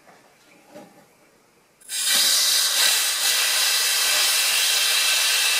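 Compressed-air blow gun hissing as air is blown through the heat riser passage of a VW air-cooled single-port intake manifold to blow out carbon. The loud steady hiss starts suddenly about two seconds in, after a few faint knocks, and the air getting through shows the heat riser is now open.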